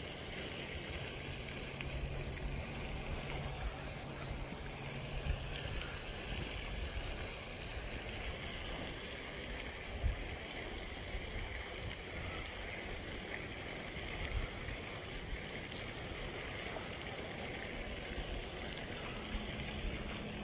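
Wind buffeting the microphone over a steady outdoor hiss, with a few soft thumps. A faint low hum runs through the first six seconds or so.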